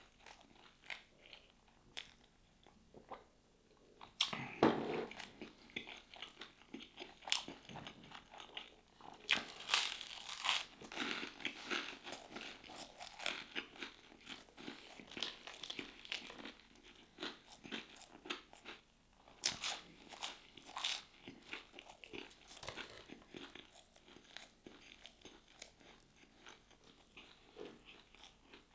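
Close-miked chewing and crunching of food: irregular wet bites and crisp crunches, busiest through the middle.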